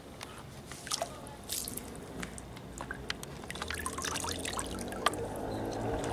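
Water dripping and splashing as leather wedge boots are lifted out of a tub of water, drops and trickles falling back into the tub. Scattered drips at first, thickest about four seconds in.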